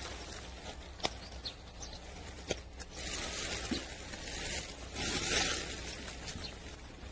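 Dry fallen leaves rustling and crackling under a cat as it rolls and wriggles on its back, swelling twice in the second half. A few sharp clicks and snaps come from the twigs and leaves it grips and bites.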